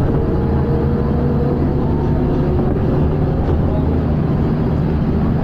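Scania L94UB single-deck bus heard from inside the saloon while on the move: a steady low engine and drivetrain drone with a faint whine over it.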